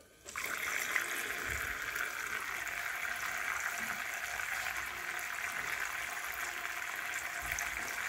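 Steady trickle of water falling from a small plastic-bottle fountain's spout into a glass bowl of water, the stream fed by a mini submersible pump.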